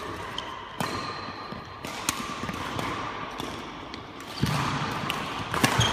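Badminton rally: a handful of sharp racket hits on the shuttlecock, with short high squeaks of court shoes on the hall floor. It gets louder about four and a half seconds in as the play speeds up.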